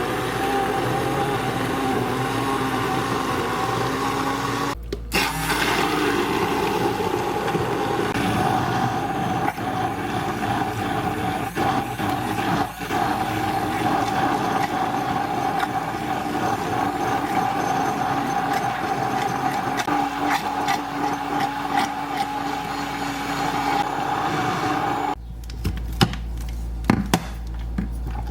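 A small electric motor in a kitchen appliance running steadily with a held whine, then stopping about three seconds before the end, followed by a few clatters of dishes.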